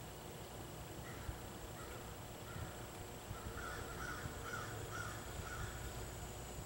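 A crow cawing repeatedly, faint at first, then a quick run of about five louder caws in the second half.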